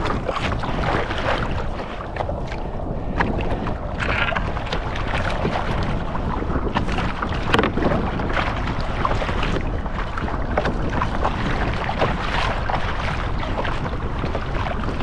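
Wind buffeting the microphone, with choppy water slapping and splashing against a kayak's hull and many small scattered knocks.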